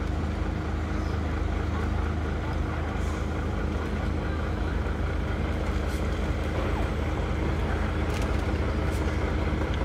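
Heavy diesel lorry engine running steadily as the tractor unit pulls its loaded fairground-ride trailer slowly forward.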